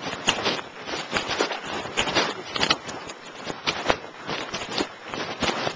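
Footsteps crunching, about two steps a second, somewhat uneven.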